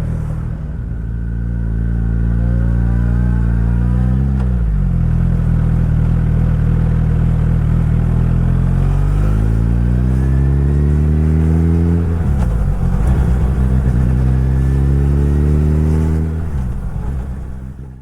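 Suzuki Hayabusa's inline-four engine accelerating through the gears: the revs climb, drop sharply at two upshifts, climb again, then fade out at the end.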